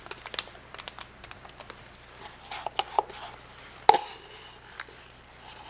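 Wooden stir stick scraping and tapping against a mixing cup as thickened epoxy is scraped out into a freezer bag. It makes a run of light clicks and short scrapes, with the sharpest tap about four seconds in.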